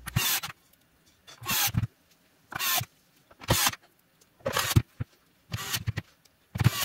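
Cordless electric screwdriver running in short bursts about once a second, driving screws into a plastic tool housing, with near silence between the runs.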